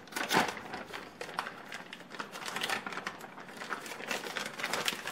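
Plastic zipper storage bag being pulled open and handled, the plastic crinkling and the zip track clicking in quick irregular crackles, loudest just after the start and again near the end.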